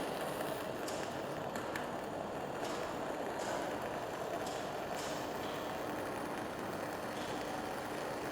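Welding arc hissing with irregular sharp crackles, from a weld with really heavy magnetic arc blow.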